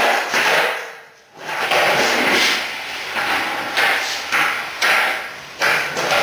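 Skateboard on a concrete floor: wheels rolling in hissing bursts, with sharp clacks and thuds of the board popping and landing.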